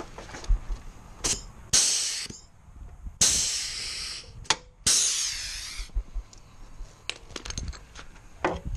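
Pneumatic rivet gun setting 3/16-inch rivets through a plastic ski skin into a steel snowmobile ski: three bursts of air hiss about a second each, with sharp clicks and knocks between them.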